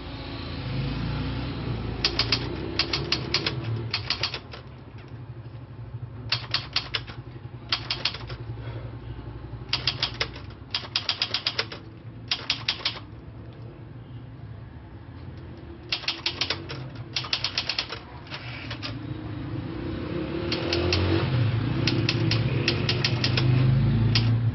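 Keys of a 1945 typewriter being struck in quick bursts of sharp clacks, with pauses of a second or two between bursts. A steady low rumble runs underneath and grows louder near the end.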